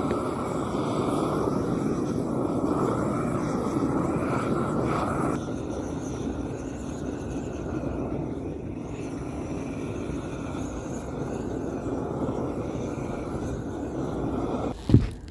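Propane torch burning steadily as it is swept over damp plywood roof sheathing to dry and warm it, a constant even rush that drops a little in level about five seconds in. A couple of sharp knocks come just at the end.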